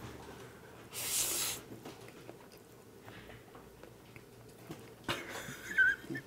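Noodles slurped up in one short, hissy pull about a second in, then quiet chewing of a full mouthful of Chapagetti noodles, with breathy sounds near the end.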